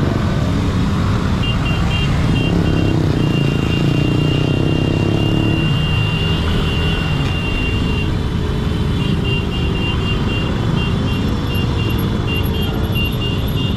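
Motorcycle engine running at low speed with road and wind noise, other motorcycles running close by in slow traffic. A thin, high-pitched tone sounds on and off through most of it, unbroken for several seconds in the middle.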